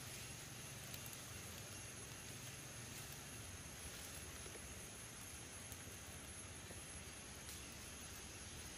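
Faint rural outdoor ambience with a steady, high-pitched insect drone and a low hum that fades out about three seconds in.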